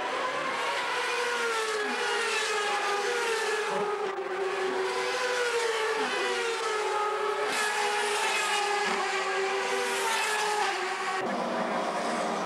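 Several CART Indy cars' turbocharged V8 engines running at high revs as they race past, many engine notes sliding up and down in pitch together. The sound changes abruptly about eleven seconds in.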